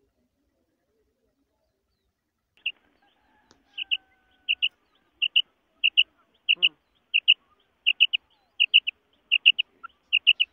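Female quail (batair) calling. Short, high, clipped notes come in quick pairs that become triplets near the end, repeated about every 0.7 seconds, starting a couple of seconds in.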